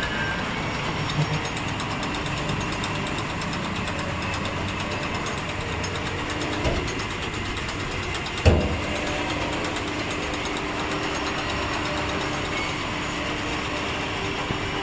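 Washing machine for 20-litre water jars running with a steady mechanical hum, with one sharp knock about eight and a half seconds in and a softer one shortly before.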